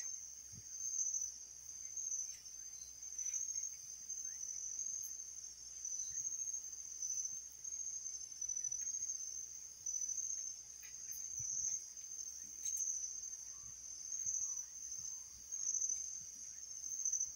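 Crickets chirping, a continuous high trill that swells and eases every second or so, with a few faint ticks.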